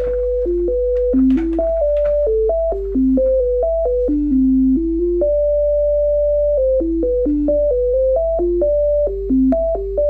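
Computer-generated pure tones sounding the digits of pi around the Feynman point, each digit a short note on a C major scale, stepping quickly up and down with a faint click at each change. About five seconds in, the six nines in a row merge into one steady note held for about a second and a half, then the quick steps resume.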